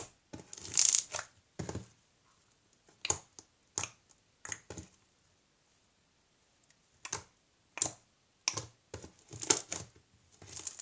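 Homemade slime squeezed and poked by hand for ASMR, giving short sticky clicks and pops in irregular clusters, with a pause of about two seconds midway.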